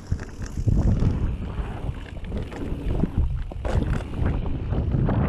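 Mountain bike ridden fast down a dirt singletrack: wind noise on the microphone over the rumble of the tyres on dirt and dry leaves, with frequent rattles and knocks from the bike over bumps, the biggest near the end.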